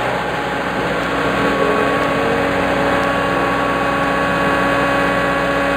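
Construction machine's engine idling steadily, a constant hum at an even level.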